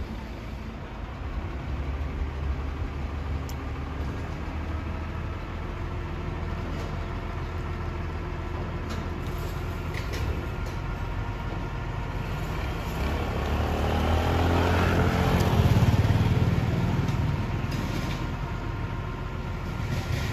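Truck engine running steadily to power a truck-mounted crane lifting a steel shipping container. About two-thirds of the way through the sound swells louder and then fades back.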